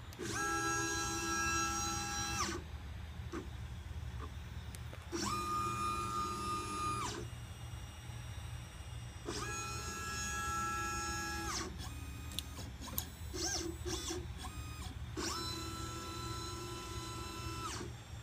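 LitePlacer pick-and-place machine's stepper motors whining as the gantry makes four long moves, each rising in pitch, holding steady and falling away. Between the moves come short clicks and brief whirs of smaller moves, over a steady low hum.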